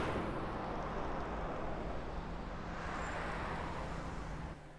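City road traffic: cars driving past, with an even rush of tyre and engine noise that swells and eases. It cuts off abruptly near the end.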